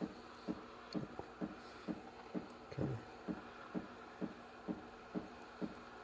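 Sur La Table dual-boiler espresso machine's pump pulsing while the steam wand heats milk: a short low thump about twice a second over a faint steady steam hiss.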